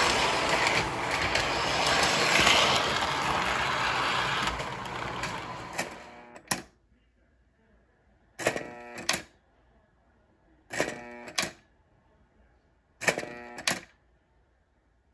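Model train running noise fades out over the first six seconds. Then a Lionel oil derrick accessory's rocking pump beam makes a short mechanical clatter with a tone on each stroke, repeating about every two and a half seconds, three times.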